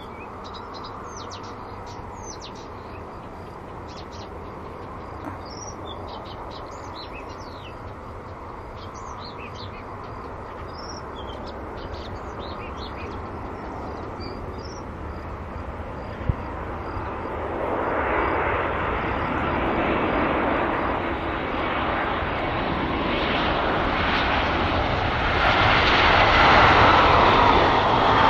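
Jet engines of an Airbus A320 airliner on landing approach: a steady rumbling noise that swells much louder from about two-thirds of the way in, with a whine falling in pitch near the end. Small birds chirp through the first half.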